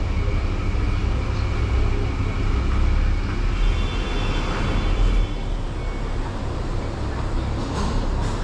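Roller brake tester in a vehicle inspection lane, running with the car's wheels on the rollers during the brake test: a steady low rumble that drops in level about five seconds in.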